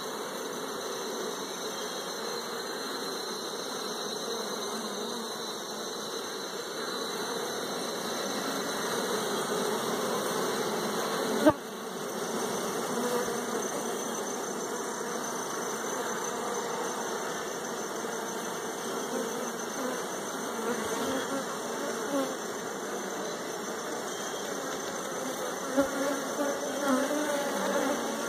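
A honeybee colony buzzing around an opened wooden hive, a dense, continuous hum. A single sharp knock sounds a little over eleven seconds in, and a few lighter knocks come near the end.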